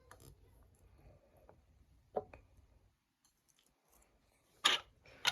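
Quiet handling of slime and small toy cake toppings: faint scattered clicks and taps, a short sharp click about two seconds in and a louder one near the end.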